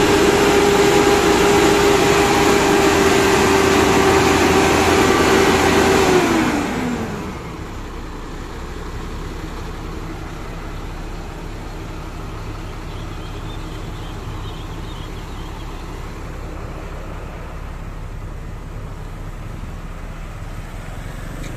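UD Trucks Quester's diesel engine held at high revs with a steady whine, then the revs fall away about six seconds in and it settles into a steady idle.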